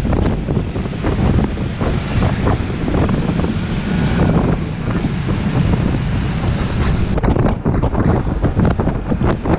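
Wind buffeting the camera microphone on a moving Honda Forza 300 scooter, a loud, gusty rumble mixed with the scooter's running and road noise. The hiss changes abruptly about seven seconds in.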